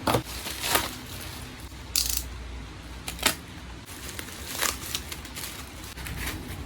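Parcel packaging and small items being handled: a string of separate crinkles and clicks of plastic wrapping, about one a second, with one longer crinkle about two seconds in.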